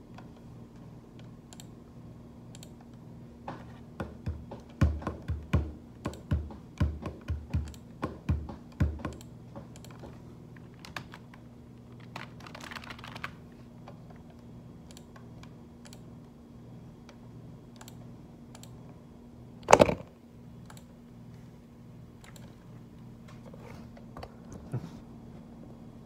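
Hands tapping and drumming on a desk, with a quick run of about a dozen low thumps early on, then scattered taps and computer keyboard clicks, and one sharp, loud knock about two-thirds of the way through. A steady low hum runs underneath.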